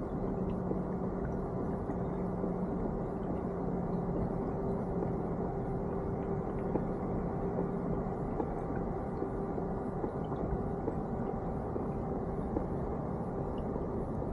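Kayak moving steadily through calm water while trolling: an even low rumble with a faint steady hum.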